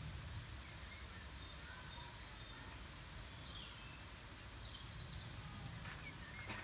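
Faint outdoor background: a low steady rumble with scattered short, faint bird chirps, and a few soft rustles near the end.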